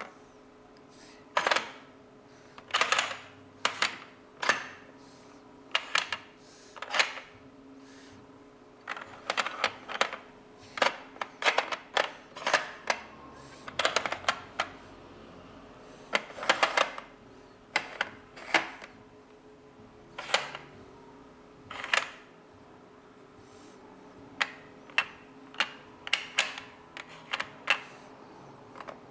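Plastic toy car pieces of a sliding-block traffic puzzle being pushed along and knocking against each other and the plastic tray: irregular sharp clacks, often two or three in quick succession, with short pauses between moves.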